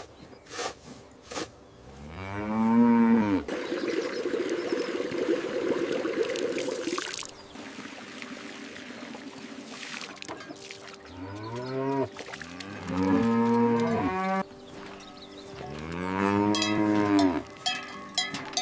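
Dairy cattle mooing: one long moo about two seconds in, several overlapping moos in the middle, and another long moo near the end. A few sharp knocks come at the start, and a steady hiss follows the first moo.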